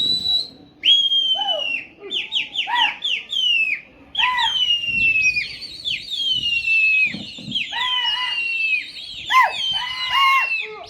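Loud, repeated whistles, each sliding down in pitch, several overlapping and coming in quick runs, with a few longer held whistles midway.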